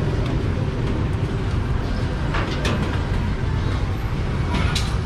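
Busy street ambience with a steady rumble of motorbike and vehicle traffic, and a few short clinks or knocks about two and a half seconds in and again near the end.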